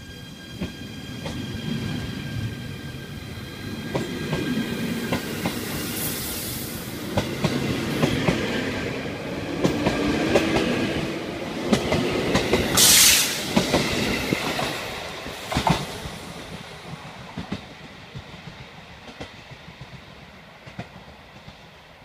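JR Hokkaido 785 series AC electric multiple unit departing: its VVVF inverter drive gives a high whine of several steady tones through the first half as it accelerates, then wheels clack over the rail joints as the cars pass. A brief loud hiss comes about 13 seconds in, and the sound fades as the train pulls away.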